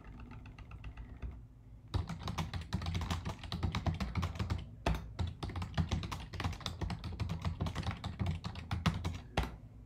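Fast typing on a computer keyboard: a dense run of key clicks that starts about two seconds in, after a short lull.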